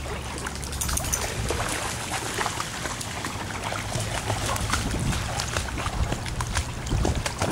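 Shallow river water splashing and sloshing as dogs wade through it: a continuous run of small splashes over a low rumble.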